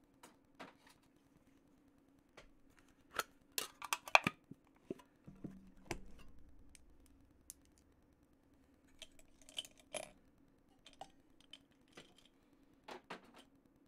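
Scattered clicks and light clatter of makeup products, pencils and cases, being picked through and handled, bunched about three to four seconds in and again near ten seconds, over a faint steady low hum.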